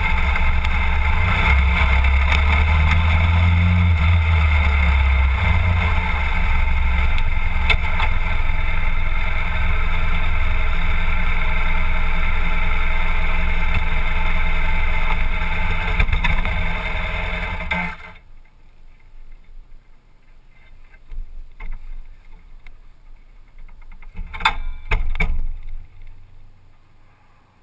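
BMW F800GS parallel-twin engine running at low speed and idling, then switched off about two-thirds of the way through. After that come a few faint clicks and knocks.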